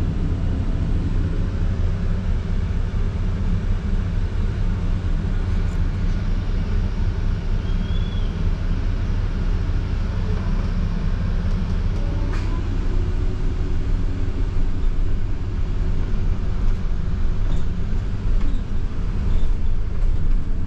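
Steady low rumble of a London bus's engine and road noise, as heard riding inside the bus. A single sharp click about twelve seconds in.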